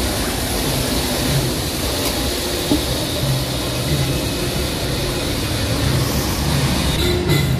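Street traffic: a steady wash of road noise from passing cars and motorbikes, with faint engine hums coming and going.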